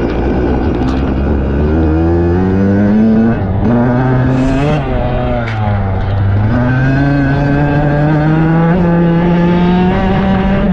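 Dirt bike engine running hard under acceleration: its pitch climbs for about three seconds, dips around five seconds in, then climbs steadily again.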